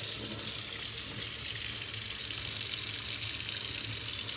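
Cold tap water running steadily from a faucet over a bare steel bike part that has just been cooked in vegetable oil, testing whether the oil coating holds.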